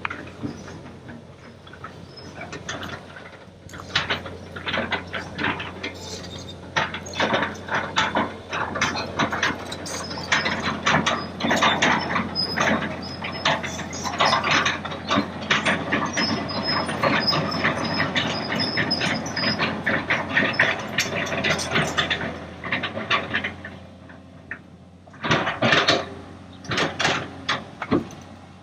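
Kobelco excavator's diesel engine running with a steady low hum, under dense, irregular metallic clanks and knocks from the machine working. The clanking is busiest through the middle and eases off briefly near the end.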